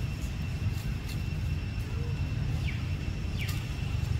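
Outdoor ambience: a steady low rumble under a continuous high insect drone, with two short falling chirps near the end.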